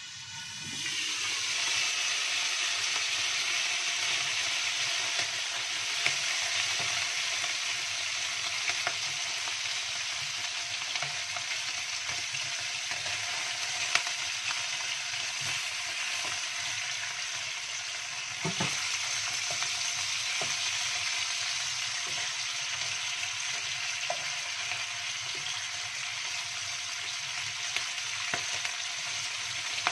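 Stingray pieces frying in oil in a wok: a steady sizzle that swells about a second in as the lid comes off. The fish is stirred and turned with a wooden spatula, which scrapes and taps against the pan in scattered clicks.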